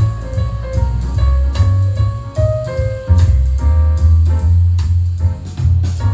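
Music with piano, a drum kit and a heavy bass line, played through Edifier 1280 bookshelf speakers driven by a Breeze Audio F1 MK2 amplifier as a sound test.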